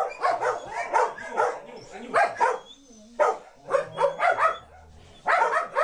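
Dogs barking in short, irregular bursts, with brief pauses about three seconds in and again near five seconds.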